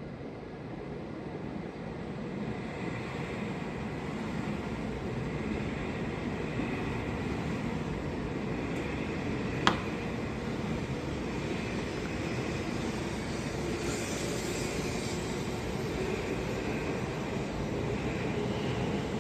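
Hokuriku Shinkansen E7/W7-series train rolling past close by at low speed. Its steady running noise from wheels and motors grows gradually louder as it gathers speed. A single sharp click comes about ten seconds in.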